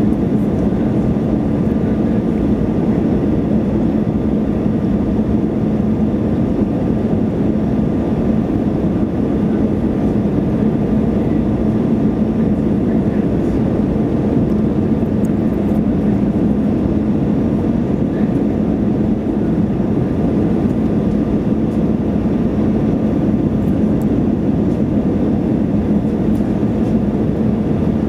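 Airbus A320 cabin noise on final approach, heard from inside the cabin beside the wing: the steady rush of engines and airflow, with a low steady hum and a faint higher tone running through it.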